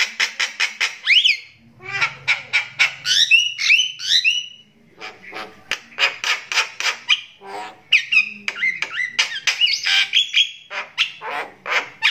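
Crystal-eye Javan myna (jalak kebo) calling loudly: fast runs of harsh, clipped squawks, several a second, mixed with short whistled notes that bend up and down, with brief pauses between runs. This is the strong, screaming 'tribal' voice typical of the crystal-eye type.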